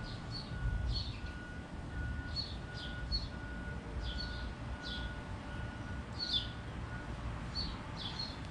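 Wild birds chirping: many short, quick, downward-sliding high notes, several a second, over a low background rumble. A fainter steady high tone pulses in short even beeps alongside them and stops about seven seconds in.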